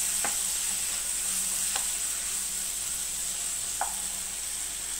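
Onion-tomato masala frying in oil in a non-stick kadai, sizzling steadily as a wooden spatula stirs it through. Three light knocks of the spatula against the pan come about a third of a second, two seconds and four seconds in.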